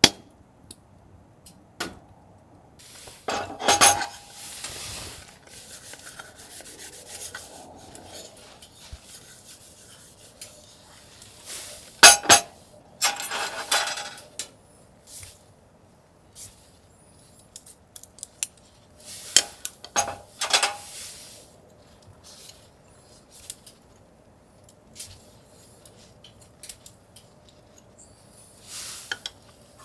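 Metal cutlery and camp cookware clinking and scraping in four short bursts several seconds apart.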